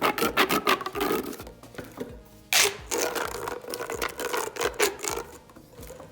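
Fidget toys handled close to the microphone for ASMR: quick runs of clicks and crinkles, with a louder burst about two and a half seconds in, trailing off near the end.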